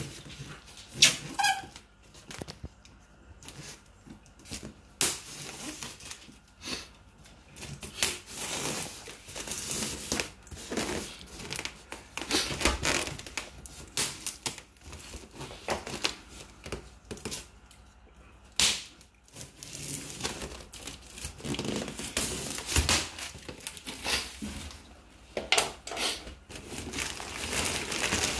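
A knife scraping and cutting through packing tape on a polystyrene foam shipping box, and the foam lid scraping as it is worked loose, in irregular strokes with short pauses. Near the end, crumpled newspaper packing crinkles as hands dig into it.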